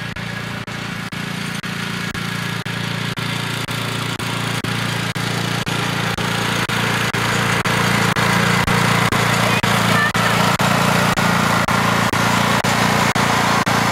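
Riding lawn mower engine running steadily, growing louder about halfway through.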